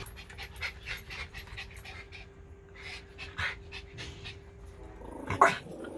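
A dog panting quickly and rhythmically, with a faint steady hum underneath and one short louder sound about five seconds in.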